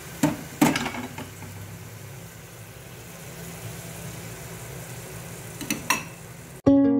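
Fenugreek greens frying in hot oil in an aluminium pressure cooker, a steady soft sizzle. A few sharp knocks of a utensil against the pot come near the start and again near the end. Ukulele music cuts in suddenly just before the end.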